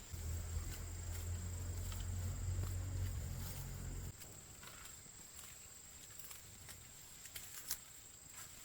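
Insects chirring in a steady high-pitched drone, with scattered light clicks and rustles. A low rumble runs for about the first four seconds, then cuts off.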